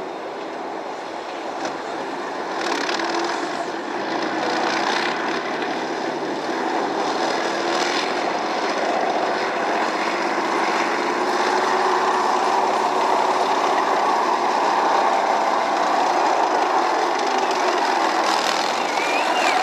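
BMP-1 tracked infantry fighting vehicle's diesel engine and tracks running together with a narrow-gauge steam train hauling coaches. The mixed engine and rail noise grows steadily louder as they come close.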